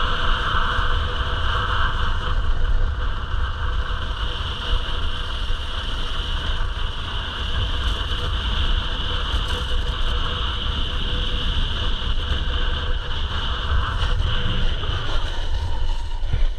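Wind rushing over the microphone during a fast skiboard run, with the short skis hissing and scraping steadily on the snow.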